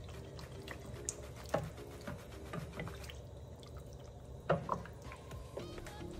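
A wooden spoon stirring pieces of beef feet and tripe in broth in a stainless steel pot: liquid sloshing and dripping, with a few sharp knocks of the spoon against the pot, the loudest about four and a half seconds in.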